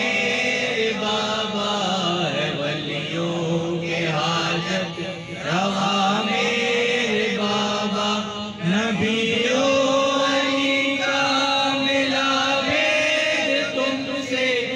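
Group of men singing an Urdu devotional manqabat in unison, drawing out long held notes with brief breaks between phrases.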